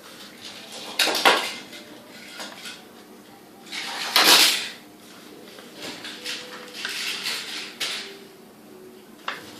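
A sheet of paper being folded and creased by hand, with dry rustling and crisp creasing swipes. The strongest come about a second in and around four seconds in, with lighter rustles later.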